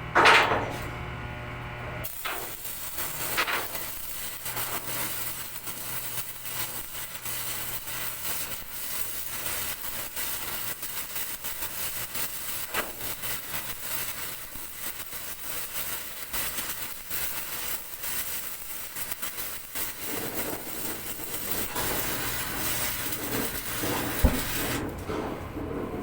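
Electric arc welding: the arc crackles and hisses steadily for about twenty seconds, starting about two seconds in and stopping shortly before the end. A brief loud noise comes right at the start, over a steady machine hum.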